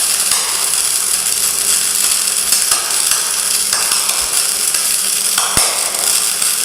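Gasless flux-core MIG welding arc crackling steadily as a weld is laid, with a few sharper pops, one about five and a half seconds in.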